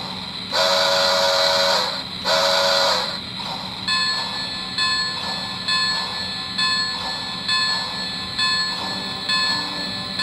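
Onboard sound effects of a Lionel HO Polar Express model steam locomotive: two short steam-whistle blasts, then from about four seconds in the locomotive bell ringing steadily, a stroke a little under every second.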